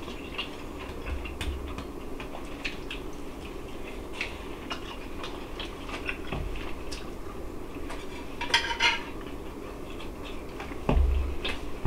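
Metal fork tapping and scraping on a plate in scattered clicks, with a denser run of scrapes a little past the middle and a dull thump near the end.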